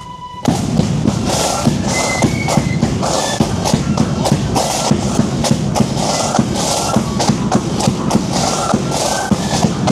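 Marching band's drums striking up about half a second in: a bass drum and snare drums beat a steady marching rhythm, with faint melody notes above.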